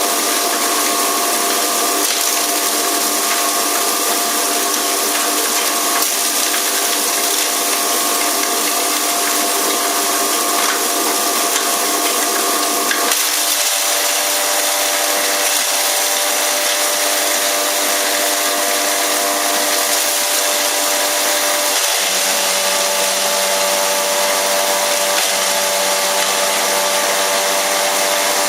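Continuous hammer mill herb grinder running: a steady, loud motor hum and rushing grinding noise. Its tone shifts about halfway through and again near the end.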